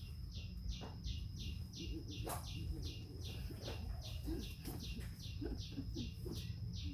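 High-pitched chirping repeated at an even pace, about three chirps a second, over a steady thin high whine and a low background rumble.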